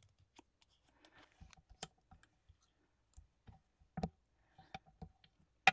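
Scattered light clicks and taps of a small kraft cardstock tab being folded by hand and creased with a bone folder on a glass cutting mat, with a sharper click right at the end.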